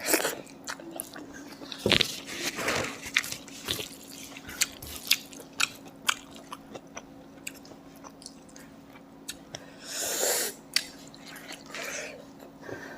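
A person eating close to the microphone: chewing food with wet mouth clicks and lip smacks in an irregular rhythm. A faint steady hum runs underneath.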